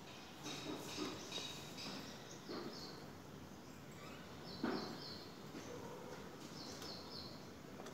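Birds chirping in short, repeated high notes over faint outdoor background noise, with a single thump a little past the middle.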